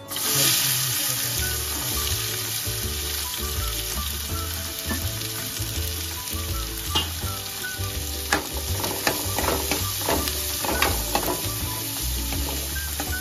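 Onions sizzling in hot oil in a pan, starting suddenly and running steadily. From about eight seconds in, short scrapes and taps of stirring come through the sizzle.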